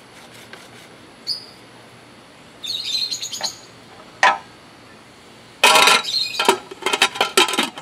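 Aluminium pot lid clanking and rattling as it is set onto an aluminium stockpot, a quick run of loud metal clatters near the end, after a single sharp clink a little earlier. Birds chirp in the background before it.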